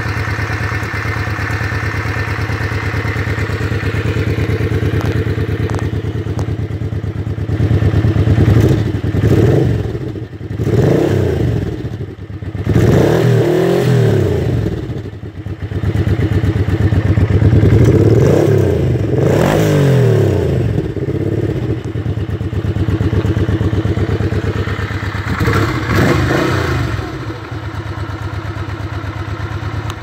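Honda VT500FT Ascot's freshly rebuilt liquid-cooled V-twin idling steadily, then revved about six times, each blip rising and falling before it settles back to idle. It runs through the stock muffler drilled with eight holes, with carbs jetted to match.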